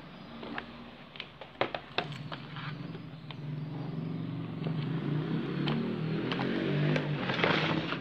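Sharp clicks and knocks of hands handling plastic connectors on a washing-machine control board, over a low engine-like drone that grows louder from about two seconds in and swells near the end.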